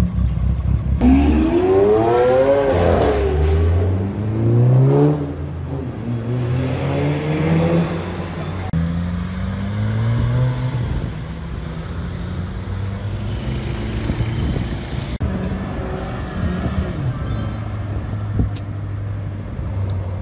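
Sports car engines accelerating hard, each revving up through several quick gear changes, one car after another. Steadier engine and traffic sound in the last few seconds.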